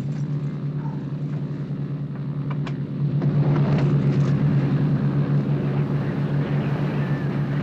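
Steady drone of a light aircraft's propeller engines heard from inside the cabin. It grows louder about three seconds in as the cabin door is opened in flight, with a faint click just before.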